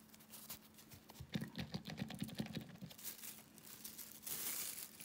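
Paper nail wipe rubbing and crinkling against a nail-art palette as it is wiped clean: a quick run of scratchy rubs about a second in, then a short swish near the end.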